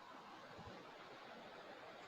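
Near silence: faint room hiss in a pause between speech.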